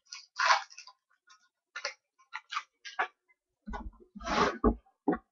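Trading-card packaging and cards being handled on a table: a string of short crinkles and clicks, then louder handling knocks and rustles about four seconds in.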